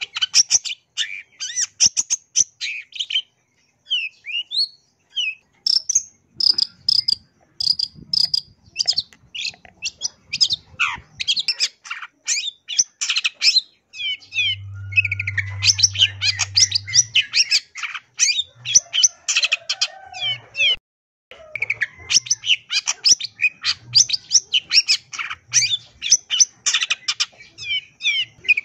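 Long-tailed shrike singing a fast, varied chattering song packed with mimicked calls of other birds, in long dense runs. It thins to a few scattered whistled notes about four seconds in and breaks off briefly about three quarters of the way through.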